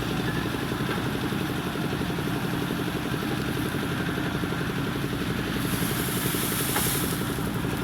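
Diesel engine of a JCB 3DX backhoe loader running steadily with an even low throb. A burst of hiss comes about six seconds in.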